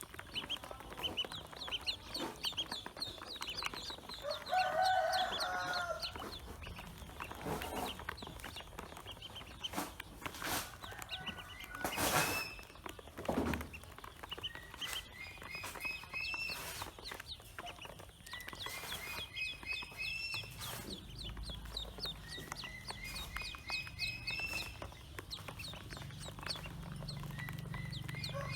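Pekin ducklings peeping in repeated runs of short, high chirps. A lower, louder bird call cuts in about five seconds in and again at the end, and there are a few sharp knocks near the middle.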